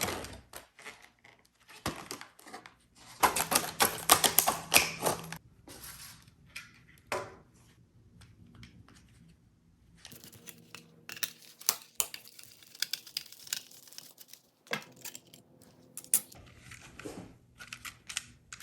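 Irregular clicking, scraping and rustling handling noises as an old wall light switch is unscrewed and pulled out of its electrical box. The busiest stretch comes a few seconds in.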